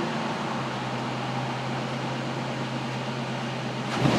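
2009 Nissan Frontier V6 engine idling steadily at about 1000 RPM, a constant hum while it misfires on cylinders 2, 4 and 6. The mechanic suspects a restricted exhaust on that bank.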